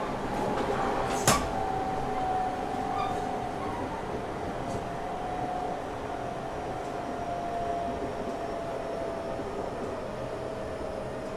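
Running noise inside a JR Shikoku 8000 series electric express train: a steady rumble of wheels on rail with a motor whine that slowly falls in pitch as the train slows. One sharp clack about a second in.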